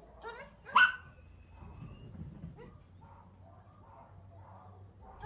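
Small dog barking: a short, quieter yip, then one sharp, loud bark about a second in.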